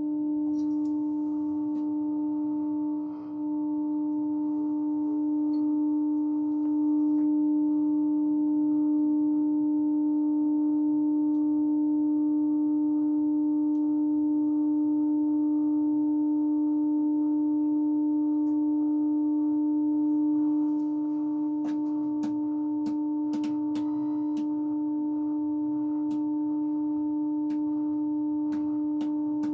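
A 1949 Motorola VT73 television running with a picture on screen gives out a steady low tone with fainter higher overtones. It dips briefly about three seconds in, and a series of sharp clicks sounds over the last several seconds.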